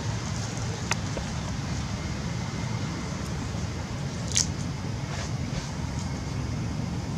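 Steady low outdoor background rumble, with a faint click about a second in and one brief sharp crackle about four and a half seconds in.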